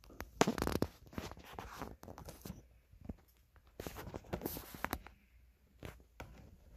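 Handling noise: scattered rustles and light clicks from hands moving the phone and the diecast model, coming in several short clusters.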